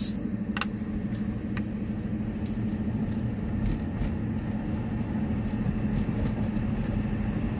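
Inside the cabin of a 2008 Jeep Grand Cherokee Laredo pulling away at low speed: steady engine and road rumble with a low hum, and a few faint light clinks here and there.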